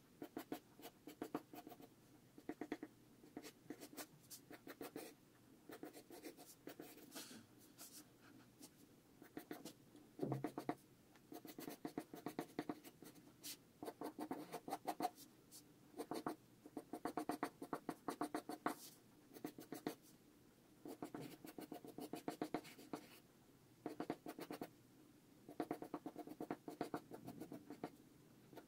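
Mechanical pencil sketching on paper: bursts of quick, light scratchy strokes separated by short pauses.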